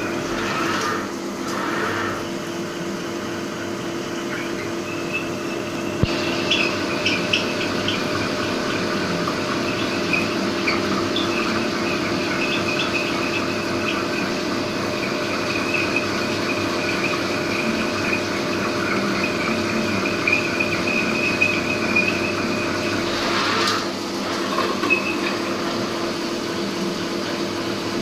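A 30 mm HSS twist drill boring into a spinning piston rod on a CNC lathe, under flood coolant. A steady machine hum runs throughout, and a high squealing cutting tone comes in about five seconds in and fades near the end.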